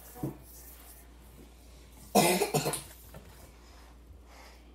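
A short burst of coughing about two seconds in, a few quick coughs run together.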